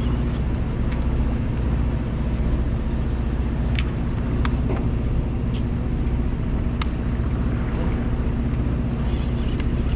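A boat's motor running with a steady, unchanging low hum, plus a few short faint clicks.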